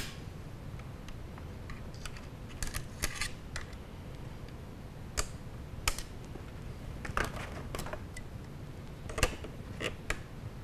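Irregular light metallic clicks and taps of a hex key and needle-nose pliers working against the springs and trigger parts inside an AK rifle's receiver, as the trigger spring ends are seated in the trigger well.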